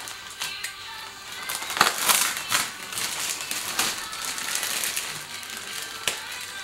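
Clear plastic packaging bag crinkling and rustling as it is cut and pulled open, in irregular bursts, loudest about two seconds in.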